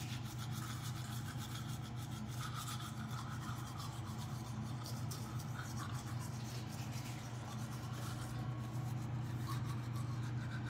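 Toothbrush scrubbing against teeth, a steady continuous brushing, over a constant low hum.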